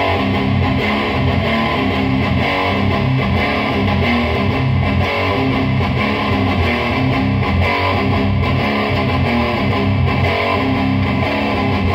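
Electric guitar tuned to C standard, played through a Lone Wolf Audio Caveman distortion pedal into a Fender Deluxe Reverb amp and a 2x12 cabinet. It plays heavily distorted riffs that sit low, on the bottom strings.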